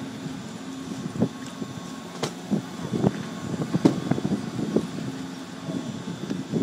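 Gondola lift terminal machinery running: a steady mechanical hum with scattered clacks and knocks as a cabin rolls slowly through the station.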